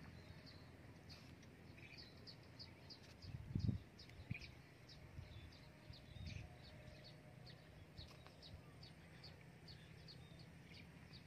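Faint outdoor ambience: a steady series of short, high chirps, a few a second, over a low rumble, with one dull thump about three and a half seconds in.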